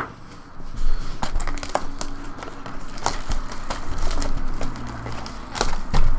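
Crinkling and tearing of the plastic wrapping on a trading-card hobby box and its packs as it is ripped open by hand, with scattered sharp crackles.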